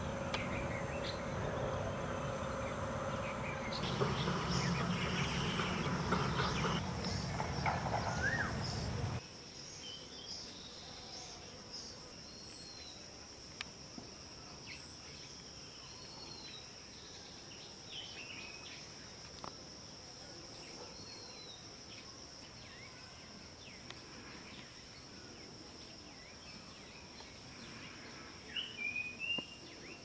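Insects, crickets among them, trilling steadily in two high, even tones, with a few short bird chirps. For the first nine seconds a louder, deeper noise lies over them, then cuts off abruptly.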